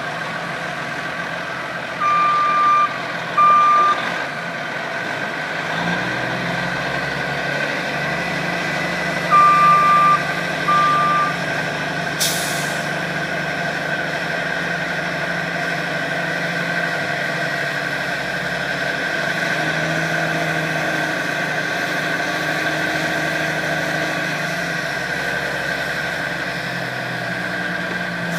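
Heavy truck's diesel engine running steadily while its dump body is raised, picking up a little about six seconds in. A backup alarm beeps twice early on and twice again about ten seconds in, and there is a short air hiss just after.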